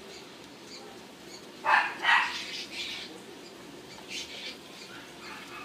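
A dog barking: two quick barks about a second and a half in, then two fainter ones about four seconds in.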